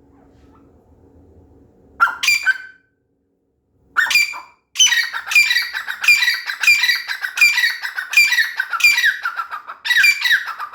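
Grey francolin (teetar) calling: two short calls about two and four seconds in, then a loud run of repeated ringing notes, about two a second, each falling in pitch, until near the end.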